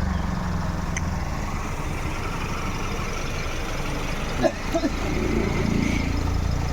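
Steady low rumble of a road vehicle's engine and road noise, with a couple of short knocks about four and a half seconds in.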